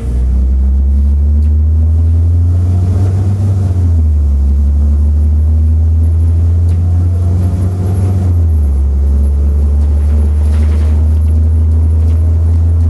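City bus engine heard from inside the cabin: a loud, deep, steady drone whose note shifts twice, about four seconds and eight and a half seconds in, as the bus drives on.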